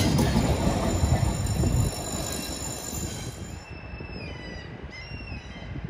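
Snälltåget night train coaches rolling past and pulling away: a loud rumble that drops off after about two seconds, followed by thin, high wheel squeals that slide in pitch as the train moves off.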